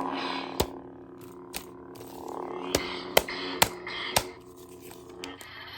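Battery-powered toy lightsaber playing its electronic sound effects through its small speaker: a steady hum with swelling swing swooshes and about six sharp hits, the saber working on fresh batteries.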